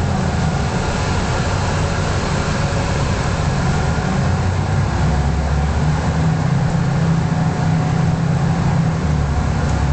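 Mercedes-Benz O405G articulated bus's diesel engine running as the bus drives, heard from inside the passenger cabin along with road noise. The low drone is steady and shifts in pitch about halfway through.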